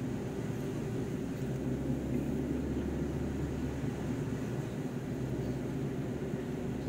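Steady low engine drone with road noise, heard from inside a moving vehicle's cab.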